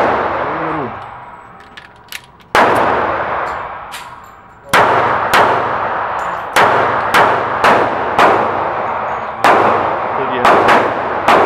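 Taurus PT738 TCP .380 ACP pocket pistol firing Tula ammunition: about nine sharp shots at uneven intervals, the first two seconds apart and the rest coming faster. Each report rings on in the reverberation of an indoor range.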